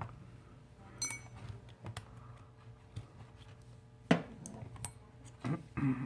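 Small metal clicks and clinks of a SIM ejector tool and the phone's SIM tray being worked out: a clink with a brief metallic ring about a second in, a sharp click about four seconds in, and a few more small clicks near the end.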